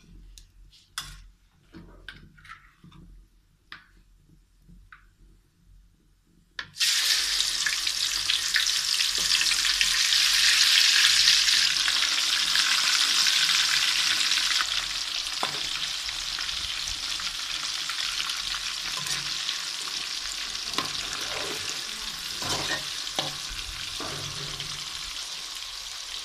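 Marinated chicken pieces going into hot oil in a metal karahi: after a few light clicks, a sudden loud sizzle starts about seven seconds in. The frying then goes on steadily and slowly eases, with a few knocks of stirring against the pan.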